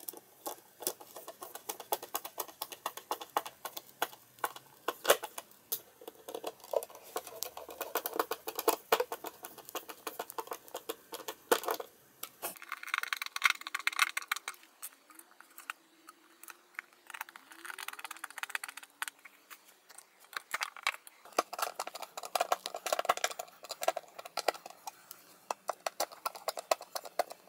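A hand screwdriver drives small screws through a metal drawer runner into a chipboard panel: a dense run of clicks, scrapes and rattles of metal, with two longer stretches of grinding about halfway through as the screws bite.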